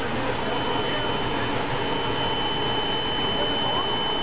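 GMS micromailer mailing machine running, its conveyor belts and rollers carrying printed sheets: a steady whirring machine noise with a thin, high whine held throughout.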